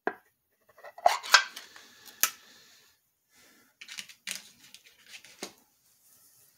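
Pull-tab lid on a metal can being popped and peeled open: a click, then a short loud scraping tear of the lid about a second in, ending in a sharp snap. Softer clinks and scrapes of the can and lid being handled follow.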